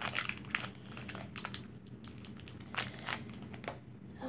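Foil wrapper of a Pokémon card booster pack crinkling and crackling as it is handled and opened, an irregular string of short crackles.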